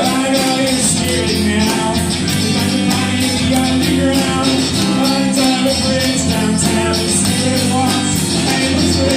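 A live band playing rock: strummed acoustic guitar, electric bass and keyboard, with percussion ticking out a steady beat.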